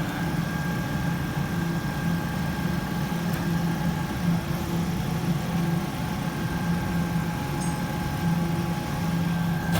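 Car engine idling steadily, with a low hum and a faint steady high tone above it.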